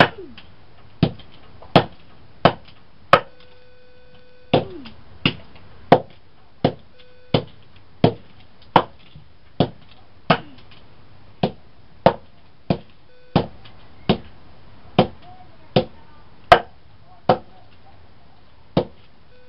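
A hammer strikes a Samsung Juke cell phone over and over, about two dozen sharp blows at roughly one every 0.7 seconds, with a couple of short pauses. A steady pitched tone sounds on and off between the blows.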